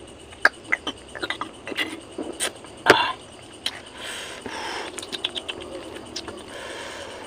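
Close-miked eating sounds: a drink from a glass bottle, with sharp clicks and knocks, the loudest about three seconds in. From about four seconds in, fingers tear apart crisp grilled fish with crackling, scraping noises.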